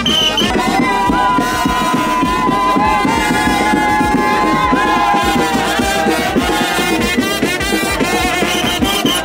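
Upbeat music with a dense, steady beat, with a long held melody note from about a second in to past the middle.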